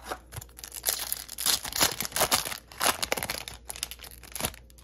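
Foil Yu-Gi-Oh booster pack being torn open by hand: irregular crinkling and ripping of the metallic wrapper that stops shortly before the end.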